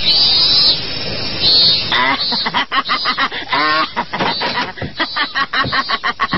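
Birds chirping for about two seconds, then a rapid run of short, pitched vocal cries or chatter, several a second.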